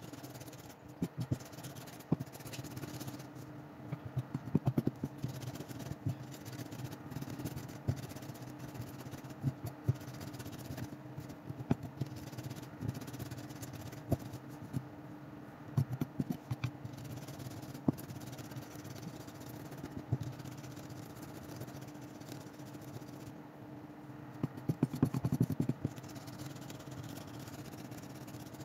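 Mezzaluna rocking knife chopping onion and carrot for a soffritto on a round wooden board: bursts of quick knocks and scrapes of the blade on the wood, with pauses between them, over a steady low hum.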